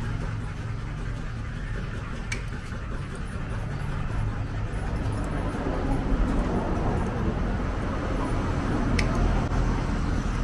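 Dog nail clipper snipping a claw twice, two sharp clicks about two and nine seconds in, over a steady low rumble.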